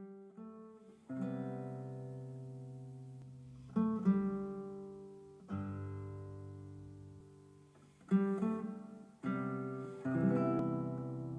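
Acoustic guitar music played through a Bluetooth speaker: strummed chords, each left to ring out and fade before the next, about six strikes.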